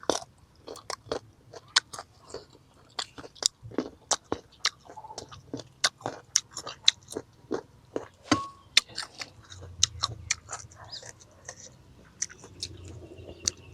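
A person biting and chewing crisp raw mango: a long run of short, sharp crunches and mouth clicks.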